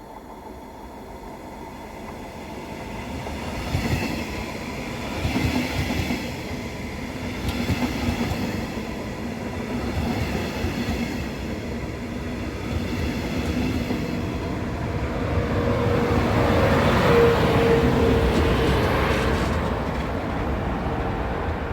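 A train passing on the line: it grows louder over the first seconds, with wheels clattering over the rails and a steady hum, and is loudest about seventeen seconds in, where a higher whine-like tone briefly joins.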